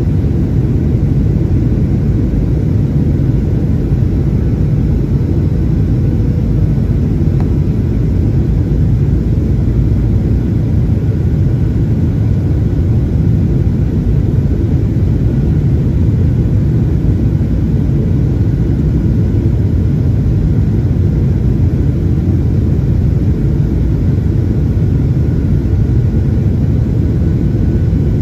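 Steady low rumble of cabin noise inside a Boeing 737-800 in flight, from its CFM56 jet engines and the airflow over the fuselage, unchanging throughout.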